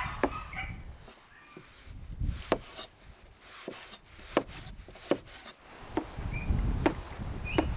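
Large cleaver-style kitchen knife slicing cucumber on a wooden cutting board: single sharp knocks of the blade hitting the board, about eight, at an uneven pace.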